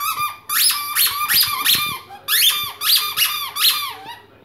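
Squeaky toy ball squeaking over and over as a puppy chews it: about nine high squeaks in quick succession, each sliding up and then down in pitch. The squeaking stops about four seconds in.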